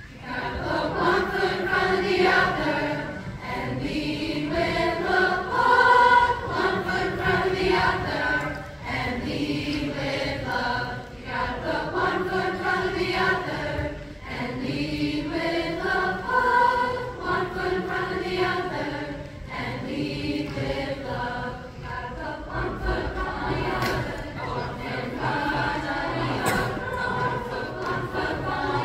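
Mixed seventh-grade school choir singing a slow song in long, held phrases, young boys' and girls' voices together.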